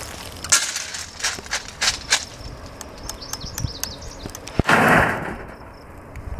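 A run of sharp clicks and taps from a metal tape measure being handled along a 3-inch PVC pipe. A louder rush of noise about half a second long comes just before five seconds in.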